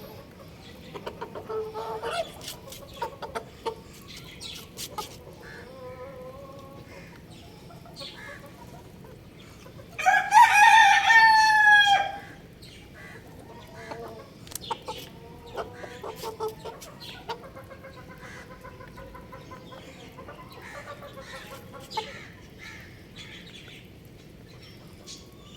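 Rooster crowing once near the middle, a loud call of about two seconds that drops slightly in pitch at the end, among softer short clucks and chirps from chickens.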